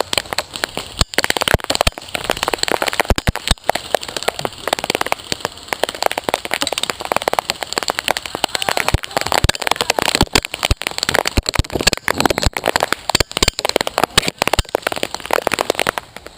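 Several airsoft guns firing rapidly at once, with BBs striking a person in homemade body armor: a dense, irregular crackle of shots and hits that starts abruptly.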